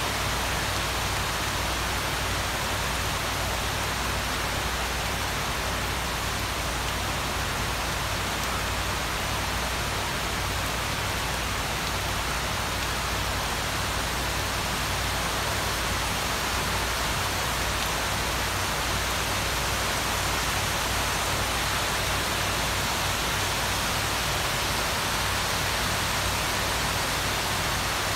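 Heavy monsoon-style downpour falling steadily on coconut palms and dense trees: a loud, even hiss of rain with a low steady rumble underneath.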